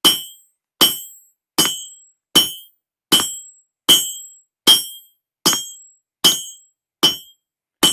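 Blacksmith's 3 lb hammer striking hot steel bar stock on the edge of an anvil, drawing down the bottle-opener end. Eleven evenly paced blows, about one every 0.8 s, each with a short metallic ring.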